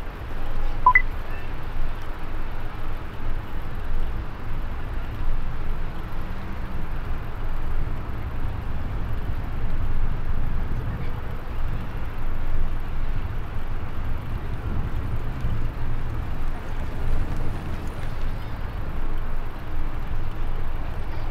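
Steady low rumble and hiss of outdoor city ambience along a walkway, with a short high beep about a second in.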